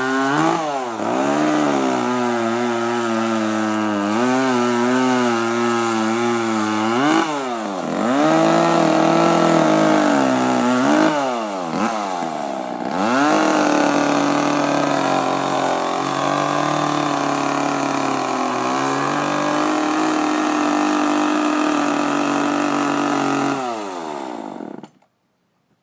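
Chainsaw cutting into wood for carving, the engine revving high and dropping in pitch several times as the throttle eases off and picks up again, before it cuts off suddenly near the end.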